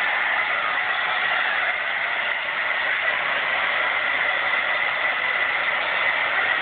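Hair dryer running steadily: an even rushing of air with a steady high whine.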